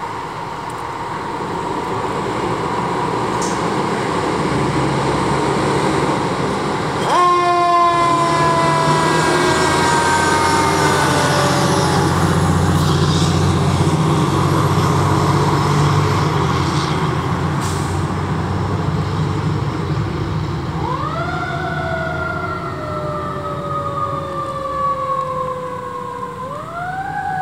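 Fire ladder truck responding with its siren going. A steady siren tone gives way about seven seconds in to a loud wail falling in pitch over the truck's engine rumble. Near the end the siren is wound up and falls away twice.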